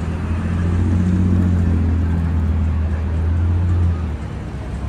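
Low, steady engine rumble of a road vehicle among city street noise, dropping away about four seconds in.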